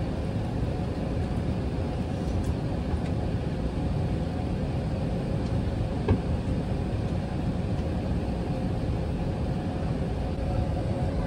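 Steady cabin noise of an Airbus A380 airliner in flight, heard from an economy seat: an even low rumble of engines and airflow with a faint steady hum over it. A single short click sounds about six seconds in.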